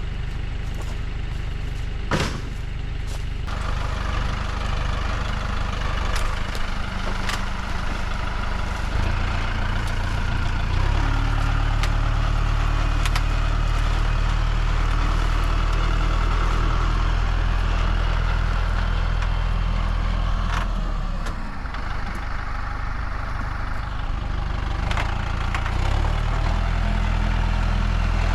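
Tractor engine running steadily, speeding up about ten seconds in, easing off a little past twenty seconds and picking up again near the end, with a few sharp knocks, the clearest about two seconds in.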